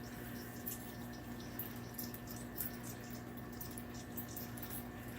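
Faint scattered ticks and rustles of fingers picking at a tight knot in the string of a cloth snake bag, over a steady low electrical hum.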